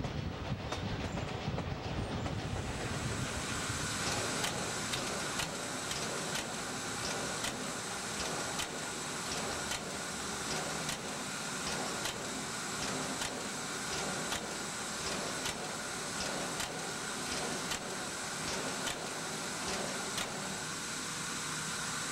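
A steam train running on the rails at first. From about two seconds in, a standing steam locomotive gives off a steady hiss of steam, with a sharp regular knock about once a second.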